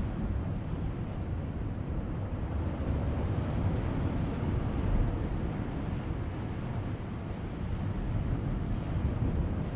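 Steady low wind rumble buffeting the microphone outdoors by the sea, with no clear separate events.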